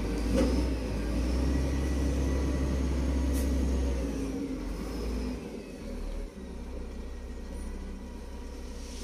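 A vehicle engine running as a low rumble that drops away about four to six seconds in, leaving a steady hiss.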